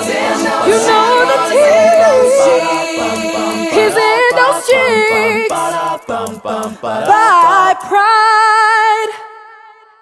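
A cappella voices singing wordless layered harmony with quick vocal runs, closing on a held chord with vibrato about eight seconds in that ends and fades out near the end.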